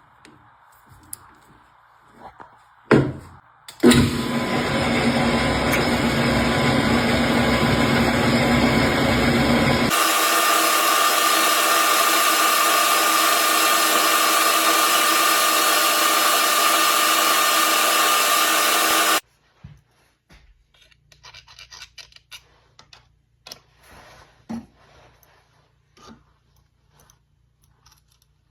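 Metal lathe machining a brass hammer head: two sharp clunks, then a loud, steady cutting noise lasting about fifteen seconds that changes in tone about ten seconds in and cuts off suddenly, followed by faint clinks of tools and metal.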